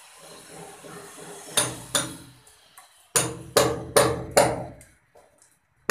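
Hammer blows on a brick wall, cutting a groove for electrical wiring. Two strikes come about a second and a half in, then a regular run of about five, roughly two and a half a second.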